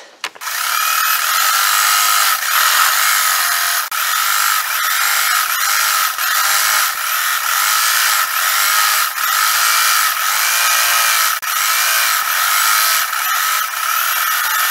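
Electric sewing machine running steadily, stitching a straight seam through cotton fabric panels, with a couple of brief pauses.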